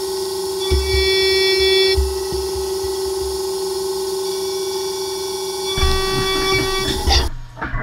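Haas CNC milling machine cutting an aluminium lower receiver: a steady high whine from the spindle and cutter, with overtones that swell and fade, sped up with the footage. The sound changes about six seconds in and drops away suddenly near the end.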